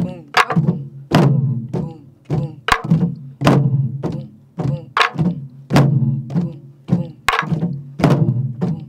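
Sori-buk barrel drums played in a steady repeating rhythm, the way a pansori accompanist plays a jangdan. Low ringing booms from the drumheads mix with sharp cracks of the wooden sticks striking the drums' wooden shells.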